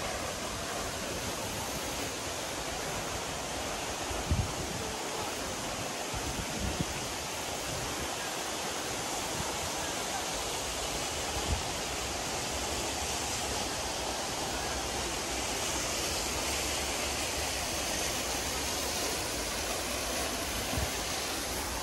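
Steady rushing noise of falling water, with a few soft low thumps along the way.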